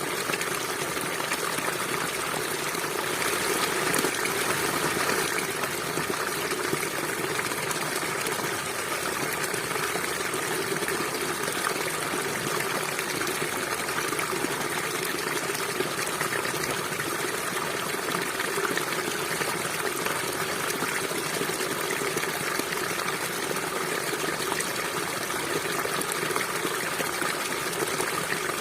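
River water flowing and gushing in a steady, unbroken rush, a little louder a few seconds in.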